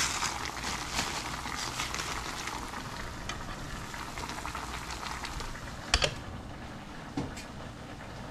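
Pot of vegetable broth simmering on the stove: a steady bubbling, crackling sizzle that eases off slowly. A sharp knock about six seconds in.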